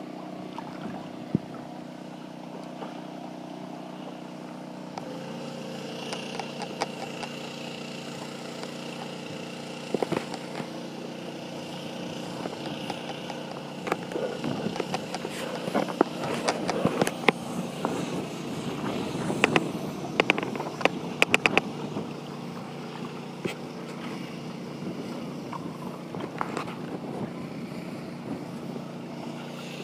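A steady engine drone runs under a dog wading and splashing in shallow lake water, with a cluster of sharp knocks and splashes near the middle.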